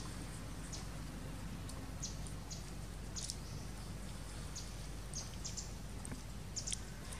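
Outdoor ambience: a steady low hum with about a dozen short, high-pitched chirps or ticks scattered irregularly through it.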